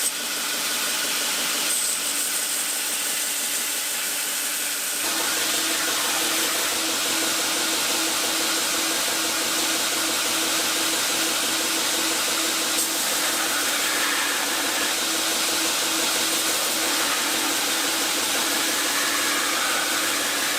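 Power grinder abrading a steel kitchen-knife blade during rough flat grinding: a steady grinding hiss. A fuller, lower hum joins about five seconds in.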